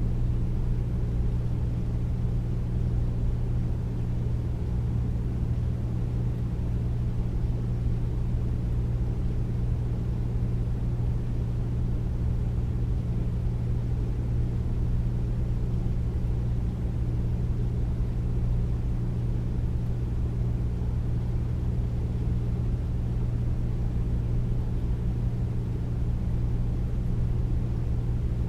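Air conditioner running steadily: a deep, even hum with airy fan noise, unchanging throughout.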